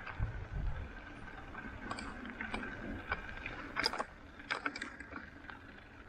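Bicycle ride on a wet road: wind rumbling on the microphone near the start, a faint steady whine, and scattered clicks and rattles from the bike and camera mount.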